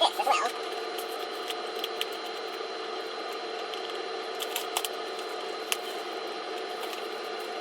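Light handling of a Blu-ray case and its paper booklet: a few small clicks and rustles over a steady electrical hum.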